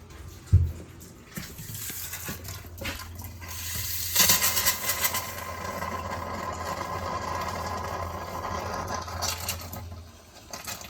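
A thump, then water rushing from an opened tap, starting abruptly about four seconds in and stopping near the end, with air still being purged from the newly filled water heater and lines.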